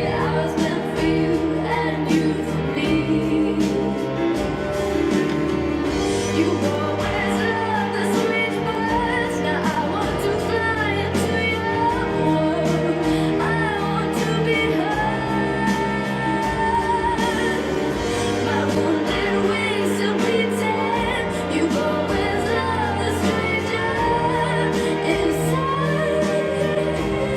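A female solo singer sings a contemporary ballad over a recorded accompaniment track. Her held notes waver with vibrato above steady sustained chords.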